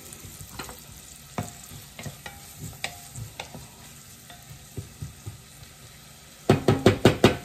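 Onion and garlic sizzling in bacon grease in an enamel pot, stirred with a wooden spatula that scrapes and clicks against the pot. Near the end comes a quick run of about six loud knocks.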